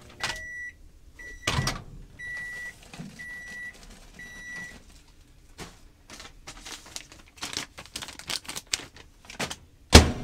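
Built-in High Pointe microwave convection oven beeping five times, about once a second, in a single high tone. Then clicks and handling at the oven, and a loud knock near the end as its door is shut.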